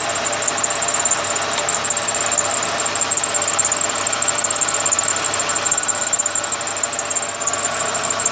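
Dacia Logan 1.6 engine idling from a cold start, with a steady high-pitched whistle running over the engine noise throughout.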